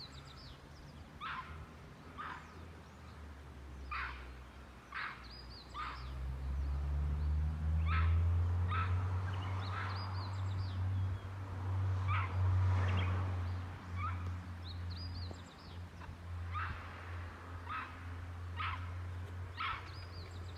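Japanese macaques giving short, sharp alarm calls, one every second or two, over and over. A low rumble swells and fades in the middle.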